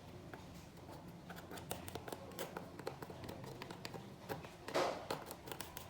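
Many small irregular clicks and taps of objects being handled on a work surface, with a short scraping noise near the end, the loudest sound.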